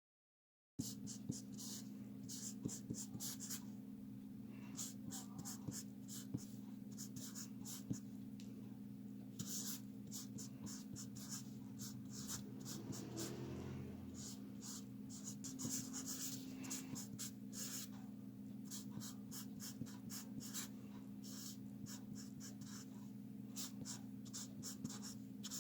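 Hand writing on paper: irregular runs of short scratching strokes over a steady low electrical hum.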